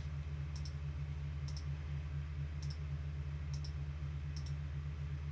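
Computer mouse clicking in quick double clicks about once a second, six pairs in all, over a steady low hum.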